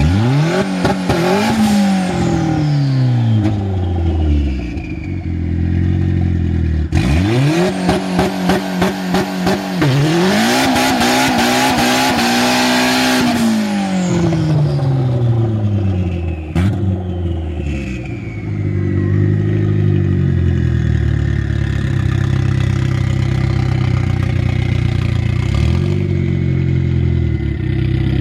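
Turbo-swapped 2007 Chevrolet Cobalt SS engine being free-revved three times, each rev climbing, held and falling back, with a rapid stuttering crackle while held high in the second rev. After a sharp click it settles to a steady idle with a faint falling whine. The turbo is a bad one, in the owner's words.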